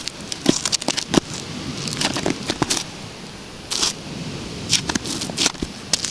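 High-heeled patent-leather pump scraping and grinding against granite and gritty sand: an irregular string of sharp clicks and crunchy scrapes.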